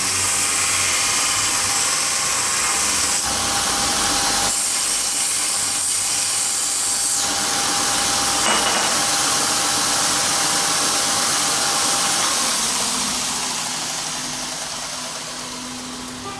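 Homemade belt grinder running steadily with a continuous whirring hiss and a few steady whining tones. Its level falls off gradually over the last few seconds.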